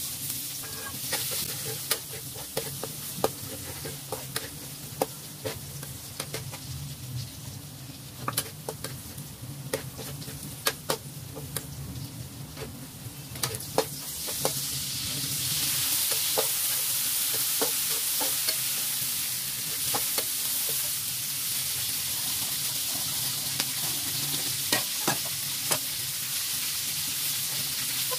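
Food frying in hot oil in a metal wok, stirred with a spatula that scrapes and knocks against the pan in short sharp clicks. About halfway through, the sizzling gets louder and stays louder.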